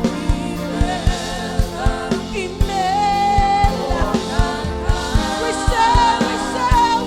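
Live gospel worship music: a band with keyboard chords, bass and a steady drum beat, with a vocalist singing a drawn-out, wavering melody over it.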